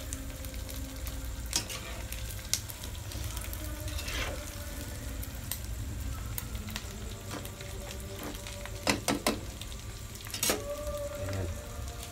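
Pork bulaklak frying in a wok of hot oil on a gas burner, sizzling steadily as a spatula stirs it, scraping and clicking against the pan. About nine seconds in there is a quick run of sharp knocks.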